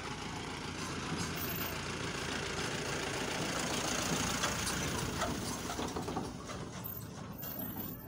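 Steady background rumble and hiss with no speech and no distinct events.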